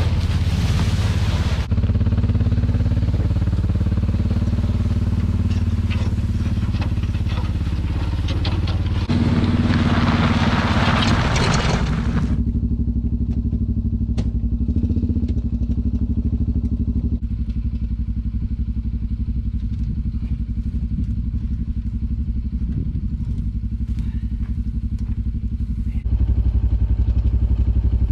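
Side-by-side UTV engine running steadily while it drags a heavy steel manger panel along the ground, the metal scraping and clattering over the dirt. The scraping drops away about halfway through, leaving mostly the engine hum.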